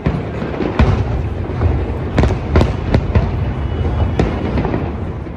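Aerial fireworks shells bursting: a string of about six sharp bangs at irregular intervals over a continuous low rumble.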